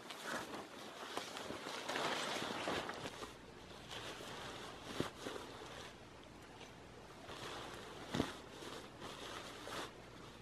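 Tarp fabric rustling and flapping as it is pulled down, then the rustle of gear being handled and packed on the ground, with two sharp clicks, the louder one about eight seconds in.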